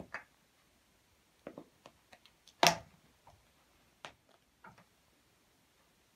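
A small toy being batted about by a cat, making a scattering of light clicks and taps, with one sharp knock about two and a half seconds in.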